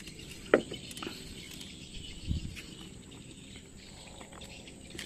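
A sharp knock about half a second in and a dull low thump a couple of seconds later, over faint insect chirring.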